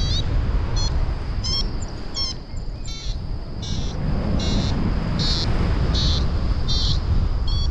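Paragliding variometer beeping in short, regular high-pitched pulses, about one every three-quarters of a second, over steady wind rushing on the microphone in flight.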